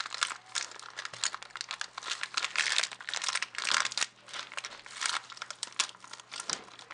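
A clear plastic bag of Lego pieces crinkling and crackling as it is pulled and torn open by hand. The crackling is busiest about two to four seconds in.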